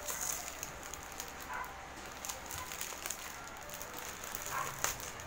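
Clear plastic bag crinkling and crackling as hands press and smooth the folded T-shirt inside it, with scattered small clicks and one sharper crackle near the end.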